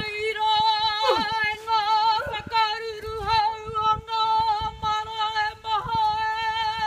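A woman's karanga, a high, held ceremonial call with a slightly wavering pitch, sung in long phrases with brief breaks for breath.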